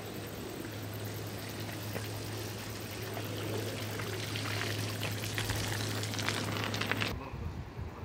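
Water pouring and trickling, with a run of splashy crackles in the second half; the sound cuts off suddenly about seven seconds in.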